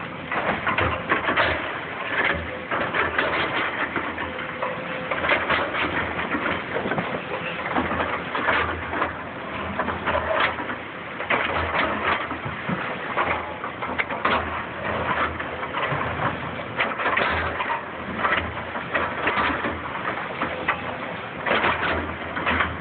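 Hydraulic excavator working demolition rubble: its bucket crunching and scraping through broken brick and concrete, with irregular clattering impacts throughout.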